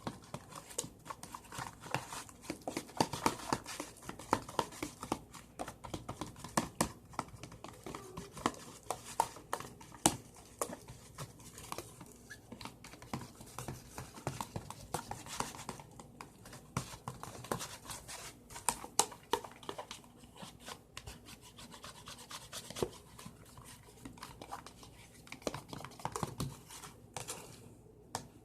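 A utensil stirring a glue-based slime mixture in a bowl, with a steady run of irregular scrapes and taps against the bowl.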